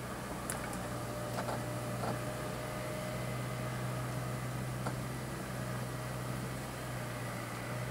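Honeybee colony humming steadily as a comb frame crowded with bees is drawn out of the hive, with a few light clicks and knocks from the wooden frame.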